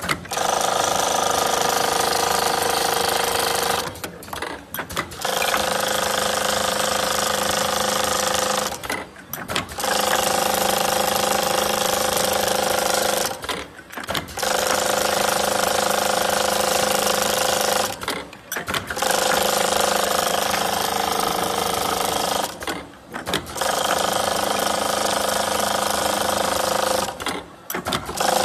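Semi-automatic flap disc making machine running in repeating cycles: a steady mechanical whir with a whine in it lasts about four seconds, then drops away for about a second before the next cycle starts, roughly every four and a half seconds.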